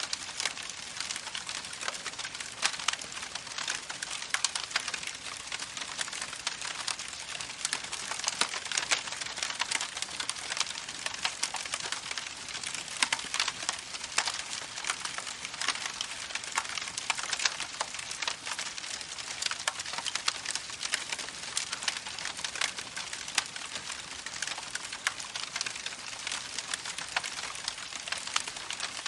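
Campfire crackling: dense, irregular small pops over a steady hiss.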